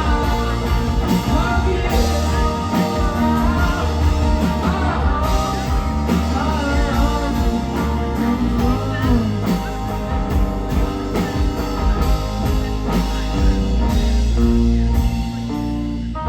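Live rock band playing loudly: electric guitars over a drum kit and bass, with singing.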